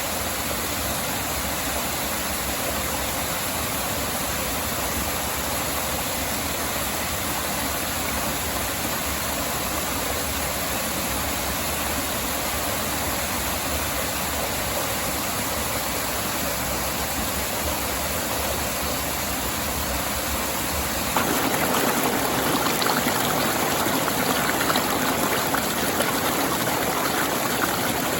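Steady rushing water of a stream and small waterfall. About two-thirds of the way through, the sound changes abruptly to a louder, fuller rush.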